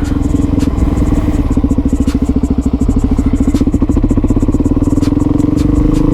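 2007 Suzuki DRZ400SM supermoto's single-cylinder four-stroke engine running while riding, a steady pulsing exhaust note with the revs creeping up near the end.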